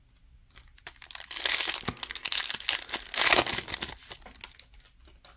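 Foil wrapper of a Donruss football card pack crinkling as it is handled, in two loud stretches about one and three seconds in.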